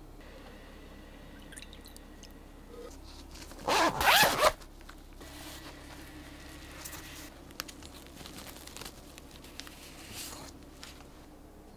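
A zipper on a fabric brush case is pulled open in one quick pull about four seconds in. It is followed by soft rustling and a few light clicks as the brushes in the case are handled.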